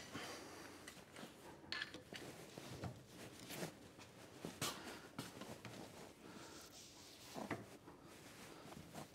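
A few faint, scattered metal clinks and knocks from blacksmith's tongs and a post vise being handled.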